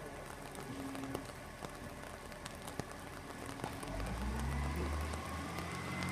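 Garbage truck's diesel engine at a distance, its low rumble growing louder about four seconds in as the truck moves off, over a light patter of rain and drips.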